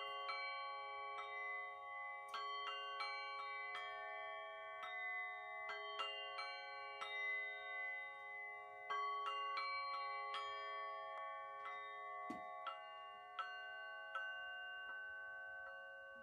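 Quartz crystal singing bowls struck again and again with mallets, each strike leaving a long steady ringing tone, the several pitches overlapping into a sustained chord.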